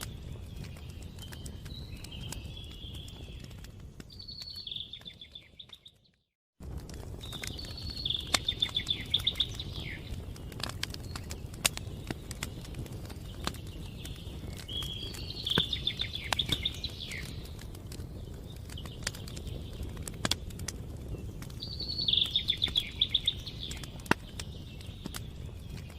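Campfire crackling, with sharp pops over a low steady rumble, while a songbird sings short trilled phrases every few seconds. The sound drops out for about half a second around six seconds in.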